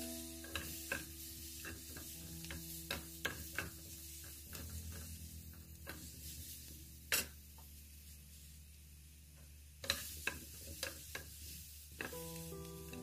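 Wooden spatula stirring whole cherry tomatoes in a small nonstick frying pan, knocking and scraping against the pan over a light sizzle. The sharpest knock comes about seven seconds in, with another run of knocks around ten seconds.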